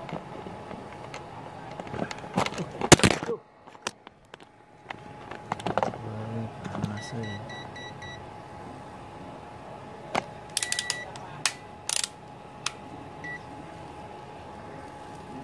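Scattered clicks and knocks with a loud clatter about three seconds in, after which the sound cuts out for about a second and a half. A quick run of short, high electronic beeps comes midway and a single beep follows a few seconds later, over a faint steady whine.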